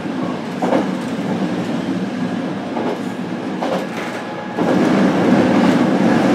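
Running noise of a JR Kyushu BEC819 'DENCHA' battery-electric train, heard inside the motor car: wheels rolling on rail with a few faint clicks. The noise steps up and grows louder about four and a half seconds in.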